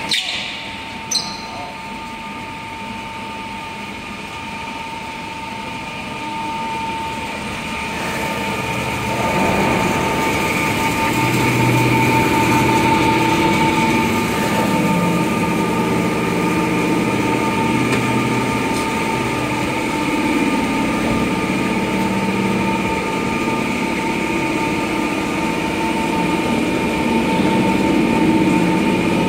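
Bank of electric motors on a fiber cement board processing machine running, with a steady whine. About eight to ten seconds in it grows louder as a lower drone joins.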